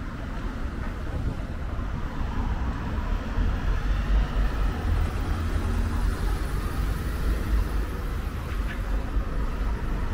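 Road traffic at a city junction: buses, tour coaches and cars moving through, with engines running and tyres on the road. It is a steady low noise that grows a little louder from about four seconds in as a coach comes past.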